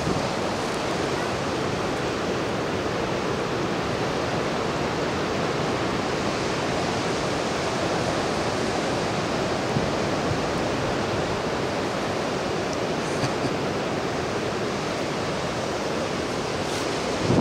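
Ocean surf breaking on the shore, a steady, even wash of noise.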